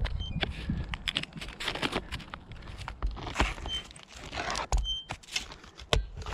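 Scattered clicks, knocks and scrapes of a caulking gun and gloved hands handling asphalt roof shingles while roof sealant is applied.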